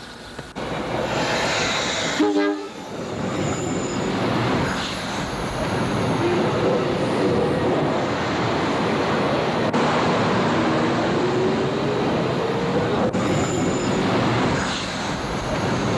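NJ Transit commuter train arriving and running past on the rails: a loud, steady rumble of the train. Its horn gives a short blast about two seconds in, and drawn-out tones rise slightly in pitch over the rumble later on.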